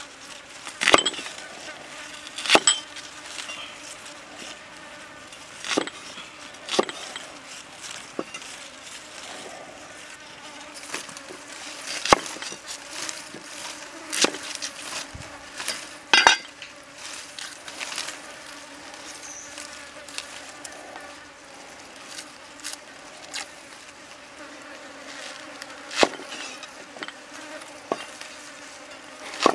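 Meat cleaver chopping onion and garlic on a wooden chopping block: single sharp knocks at irregular intervals, a second or a few apart, over a steady background buzz.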